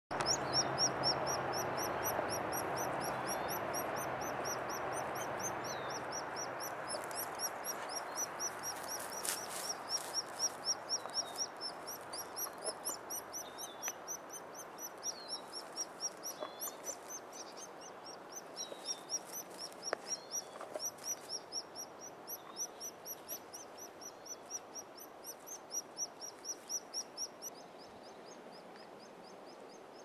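White-headed woodpecker chick begging from the nest cavity: short, high chirps repeated about twice a second in a steady run that stops near the end. A faint rushing background fades out over the first half.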